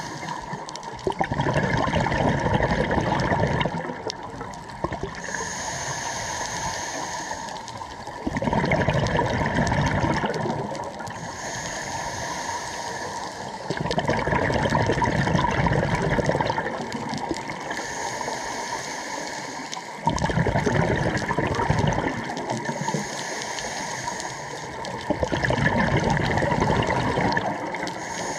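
Scuba diver breathing through a regulator underwater. Five rushes of exhaled bubbles come about every six seconds, and between them are quieter inhalations with a thin high hiss.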